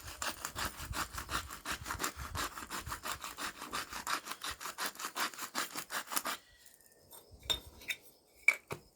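Hand-twisted spice grinder grinding salt and pepper onto pork chops: a fast rasping grind, about five or six strokes a second, that stops suddenly about six seconds in, followed by a few light clicks and knocks.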